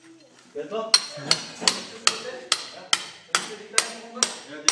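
Club hammer striking a chisel driven into a plaster wall: a steady run of about ten sharp blows, roughly two and a half a second, starting about a second in.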